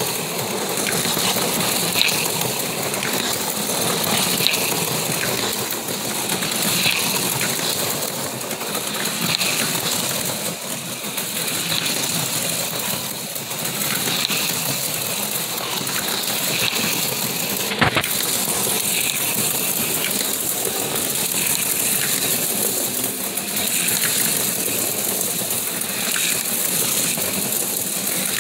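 HO-scale slot cars running on a plastic slot track, their tiny electric motors whirring and the cars rattling along the rails. The sound swells briefly about every two seconds as a car comes by, with one sharp click about two-thirds of the way through.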